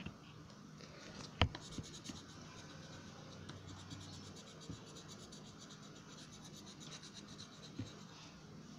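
Coloured pencil scratching back and forth on paper as an area is shaded in, with one sharp tap about one and a half seconds in.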